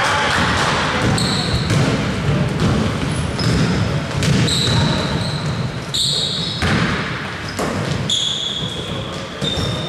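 Basketball game play: sneakers squeaking on the court floor in many short, high squeaks, with a ball bouncing and players' voices in the background.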